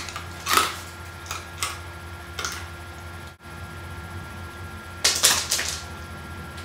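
Crunching and crackling of a person chewing an oven-roasted chestnut charred black. It comes as a few short crunches, with a denser run of crunching about five seconds in.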